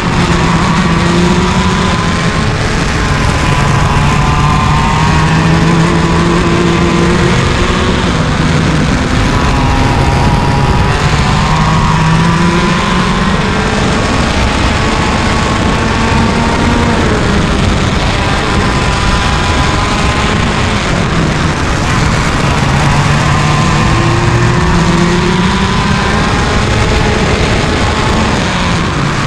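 IAME KA100 single-cylinder two-stroke kart engine at racing speed, its pitch climbing steadily and then dropping off sharply, again and again through the laps.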